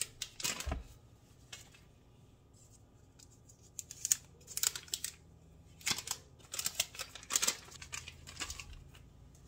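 Paper butter wrappers being peeled off and crinkled, heard as short, irregular rustles and tears with a few light knocks, most of them in the second half.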